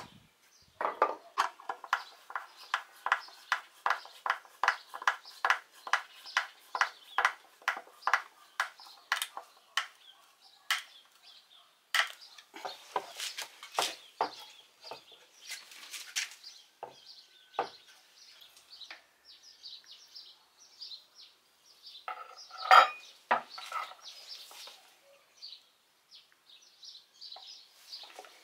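Hammer driving nails into a wooden board, a steady run of blows about three a second, each with a short ring, for roughly the first ten seconds. Then scattered knocks and scrapes of wooden pieces being handled, with one loud knock a little over twenty seconds in.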